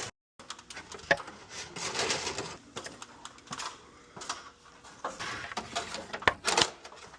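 Irregular clicking, tapping and rustling of hands-on work with cable and hardware, with a few sharper knocks about a second in and again near the end.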